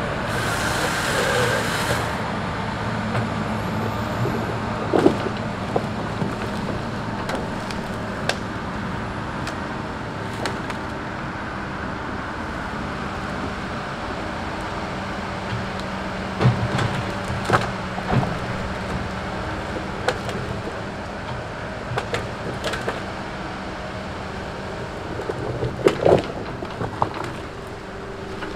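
Tigercat log loader's diesel engine running steadily while its boom and grapple handle tree-length pine logs. Scattered knocks and thuds of logs striking each other stand out about five seconds in, around the middle and near the end.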